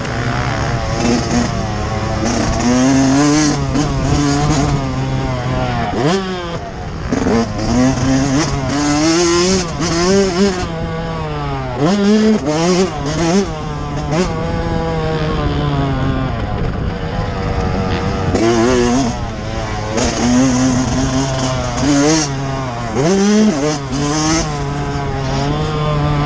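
Yamaha YZ125 two-stroke 125 cc motocross bike engine under hard riding, its pitch climbing again and again and dropping sharply as the rider shifts gears and rolls off the throttle, then winds it up again. A steady low engine note runs under it throughout.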